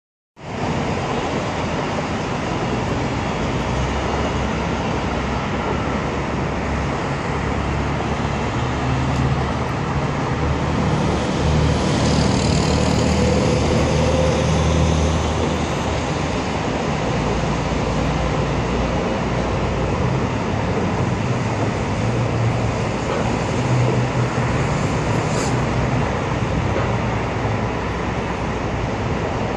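Steady roar of traffic on a busy multi-lane highway, the low rumble of passing vehicles swelling and easing.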